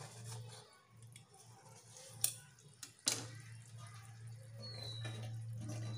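A few sharp clicks of a steel knife against a steel tin and the wooden tabletop, as the knife loosening a steamed dhokla's edges is set down, over a steady low hum.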